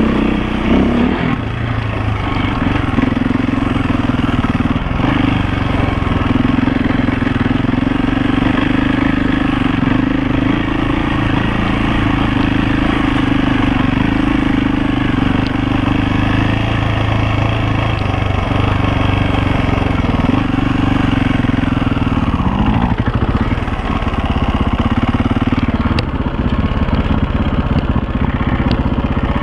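KTM 450 EXC enduro motorcycle's single-cylinder four-stroke engine running steadily as the bike rides a dirt trail, then dropping to a lower, uneven note in the last several seconds as the bike slows to a stop.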